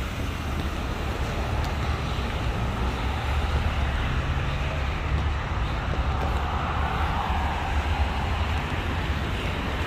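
Steady low rumble of vehicle engines and road traffic, with a vehicle passing about seven seconds in.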